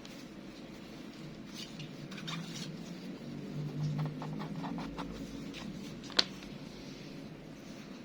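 Hands handling a Zippo lighter and its packaging: soft rubbing and scraping with scattered small clicks, and one sharp click about six seconds in.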